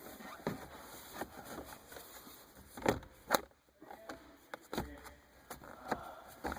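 Plastic steering-column trim covers being handled and lined up, giving scattered light clicks and taps, with two sharper clicks about three seconds in.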